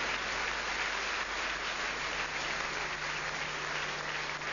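Audience applauding steadily after a point in a table tennis match.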